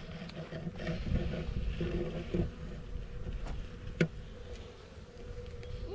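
Honeybees from an exposed, calm colony buzzing close by, with a steady humming tone; a single sharp click about four seconds in.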